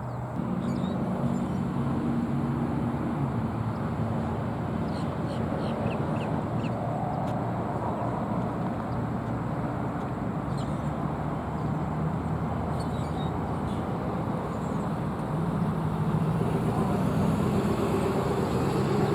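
Steady road-traffic rumble from passing vehicles, swelling near the end as one comes closer. Faint short high bird chirps a few times in the middle.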